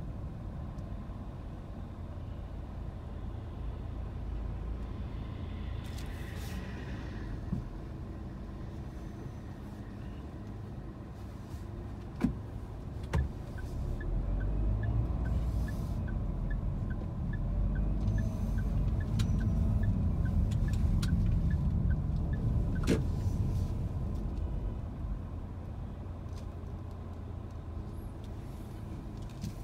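Car interior with a low engine and road rumble, quiet while stopped, then rising about halfway through as the car pulls away and drives on. Two sharp clicks come just before it moves off, and a light, even ticking runs for several seconds while it is under way.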